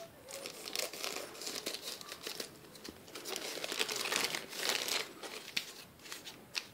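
Plastic courier bag crinkling as it is cut open with scissors and handled, loudest from about three seconds in.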